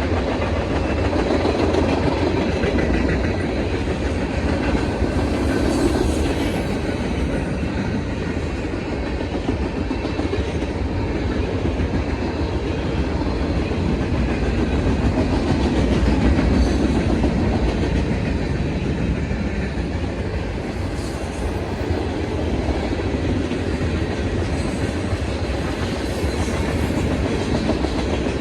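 Freight train passing at track side, its cars rolling by in a steady, unbroken run.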